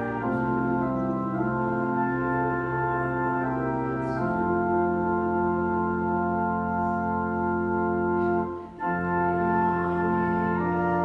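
Church organ playing a hymn in sustained, held chords that change every second or so, with a short break between phrases about three-quarters of the way through.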